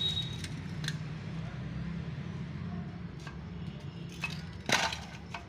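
Light metallic clicks from the removed dual-clutch assembly as it is handled, with one louder sharp clack near the end, over a steady low hum.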